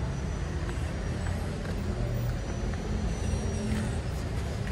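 Steady low rumble of motor vehicles in the background, with no distinct events.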